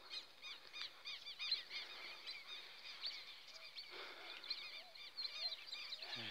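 Birds calling outdoors: many quick, high chirping notes in a continuous chatter. From about four seconds in, a lower short note repeats roughly twice a second.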